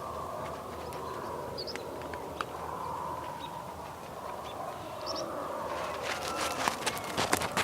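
Farmyard morning ambience: a steady wash of distant livestock sound with brief, high bird chirps scattered through. From about six seconds in comes a quick run of clattering knocks.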